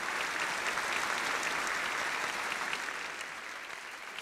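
Applause from many people clapping, fading away near the end.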